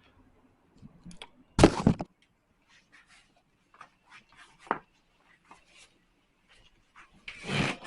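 Handling noise as a pair of sneakers is picked up and pulled on: a loud rustling knock about a second and a half in, a sharp click near the middle, and another rustle near the end, with faint scuffs between.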